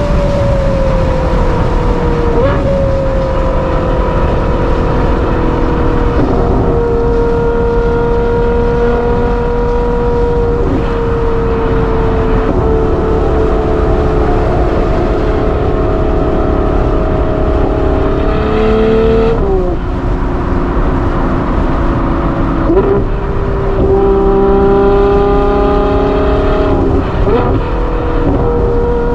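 Ferrari 812 GTS's naturally aspirated V12 with a Novitec exhaust, heard from the driver's seat while cruising on the motorway. The engine note eases down slowly and steps at several gear changes. It rises briefly under acceleration to a shift about two-thirds of the way through. Steady wind and tyre roar runs underneath.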